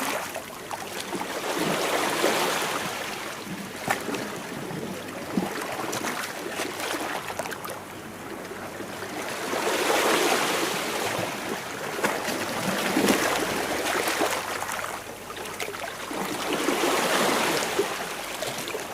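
Sea waves washing against rocks: surges that swell and ebb every few seconds, with a few sharp splashes, cutting off suddenly at the end.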